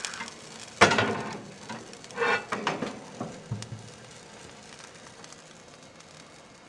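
Pancakes sizzling faintly on a hot griddle, with a sharp clatter about a second in and a few more knocks and clinks over the next few seconds. The sizzling fades toward the end.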